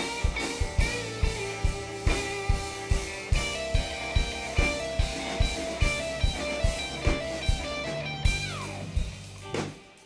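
Live rock band playing an instrumental passage of a grunge ballad: electric guitar melody over a steady drum beat and bass. A guitar slide falls in pitch near the end, then the band drops out briefly.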